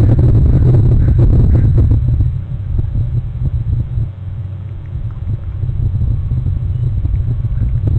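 Wind buffeting an outdoor microphone: a loud, uneven low rumble that eases off about two seconds in and builds back up near the end.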